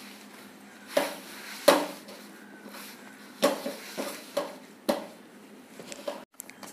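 Stiff wheat-flour dough being kneaded by hand in a stainless steel plate, with a handful of irregular sharp knocks as the hand and dough press and bump against the metal.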